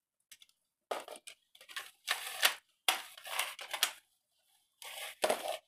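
Plastic toy RC cars and their remote being handled on a hard floor: a run of short scrapes and clatters for about three seconds, then another burst near the end.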